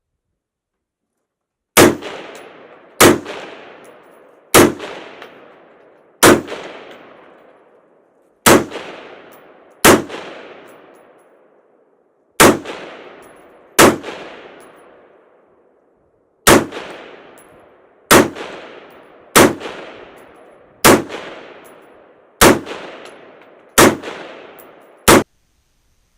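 Rifle fired fifteen times in slow single shots, about one to two and a half seconds apart, each shot followed by a fading echo.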